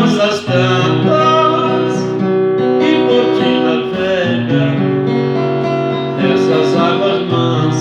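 Instrumental music: a guitar sound playing a melody over chords with fuller accompaniment underneath, a break between sung verses.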